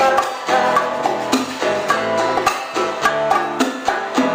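Live old-school Cuban music: plucked strings over percussion, with a steady rhythmic beat.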